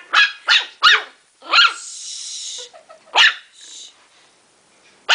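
Ten-week-old Morkie puppy (Maltese–Yorkshire terrier cross) yapping in short, high-pitched barks, about five in the first three seconds; the thin, squeaky bark is typical of so young a puppy. A brief hiss comes about two seconds in.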